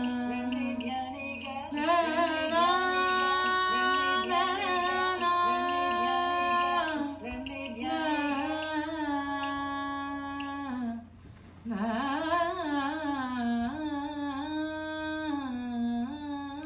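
A single voice singing long wordless held notes, wavering and gliding from one pitch to the next, with a short break for breath about eleven seconds in.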